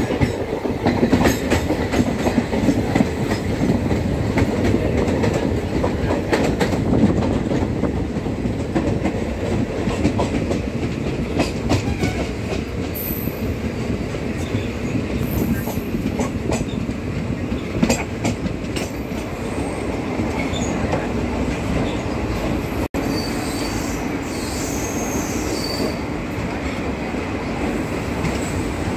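Passenger train running along the line: a steady rumble of wheels on rail with scattered clicks over the rail joints. Brief high wheel squeals come in about four-fifths of the way through.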